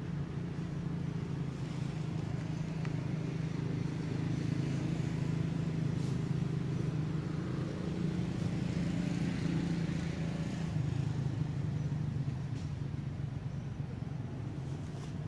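An engine running steadily with a low, even hum, its pitch shifting slightly around the middle.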